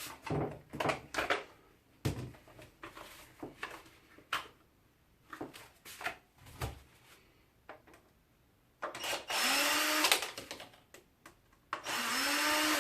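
Clicks and knocks of plastic parts being handled, then a cordless drill-driver run twice, about a second each time, its whir climbing in pitch as it spins up, while it unscrews the strimmer's plastic housing.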